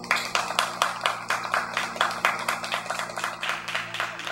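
A few people clapping, fast and uneven, over a steady low hum; the clapping begins suddenly and thins out toward the end.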